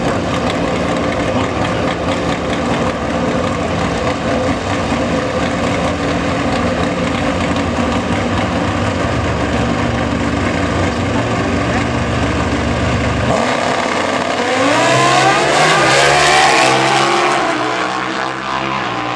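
Two Pro Stock drag motorcycles running at the starting line, engines held steady at high revs, then launching about two-thirds of the way through: the engine note climbs in pitch in several rising sweeps as the bikes accelerate away, and eases off near the end.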